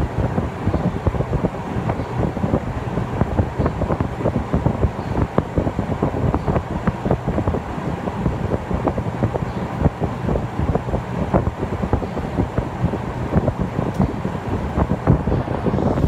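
Saijo Denki air conditioner outdoor unit running, its fan drawing a steady low rumble, with the fan's airflow buffeting the microphone.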